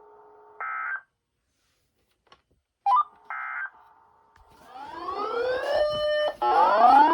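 Electronic signal tones on a weather radio broadcast: a faint steady tone, then two short buzzy bursts of data tones a few seconds apart, followed by two loud rising electronic sweeps near the end.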